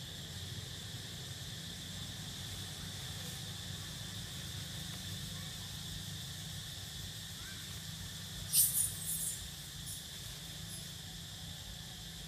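Steady high-pitched drone of insects in the forest, with a brief crackling rustle, and a couple of smaller ones after it, about two-thirds of the way in.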